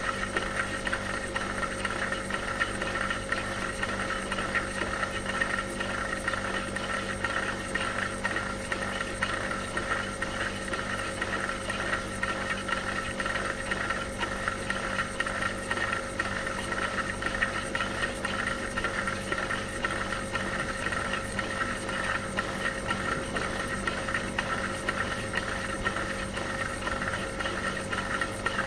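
Dishwasher running: a steady motor hum with constant water spray hissing inside the machine, unchanging throughout.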